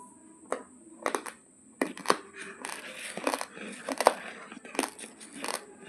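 Plastic spoon scooping raw basmati rice inside its plastic bag: the bag crinkles and the dry grains rustle and scrape against the spoon in a string of sharp crackles starting about half a second in.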